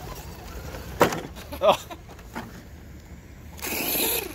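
Collision between two RC trucks, the Redcat Volcano EPX basher striking a scale crawler: a sharp crack about a second in, a second loud burst shortly after, and a rush of noise near the end as they tumble over on gravel.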